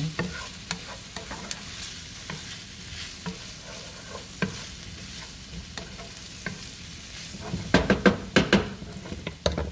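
Sliced smoked sausage, onions, green bell pepper and garlic sizzling in oil in a nonstick skillet while a wooden spatula stirs and scrapes through them, with scattered small clicks. Near the end comes a cluster of louder scrapes and knocks of the spatula against the pan.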